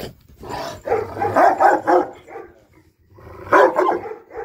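A large black guard dog barking at the cage bars in two loud bouts, one about a second in and a shorter one near the end.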